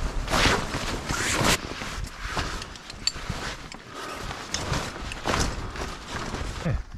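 Tent fabric or a tarp rustling and swishing in a series of irregular strokes as it is pulled over a tent.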